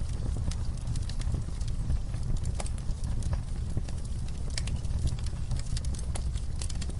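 Fireplace fire crackling: irregular sharp pops and snaps over a steady low rumble of the flames.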